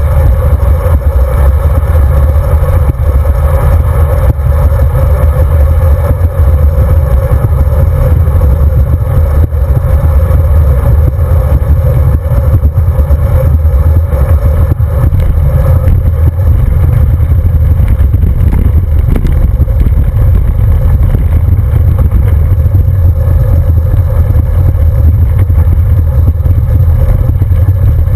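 Wind rumble on a handlebar-mounted camera's microphone with the road bike's tyre and frame noise, loud and steady throughout. From about halfway on, the rattle grows as the bike rolls onto rough patched road and gravel.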